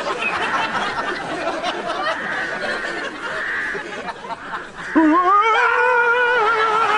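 Laughter, then about five seconds in a long, wavering held vocal cry.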